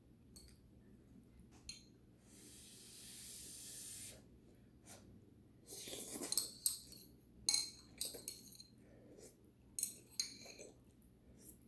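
Slurping thick udon noodles from a bowl with metal chopsticks: a run of sharp, wet sucking sounds in the second half, with light clinks. Before that comes a soft breathy hiss lasting about two seconds.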